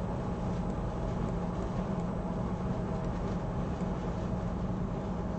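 Steady low background hum with faint hiss, unchanging throughout.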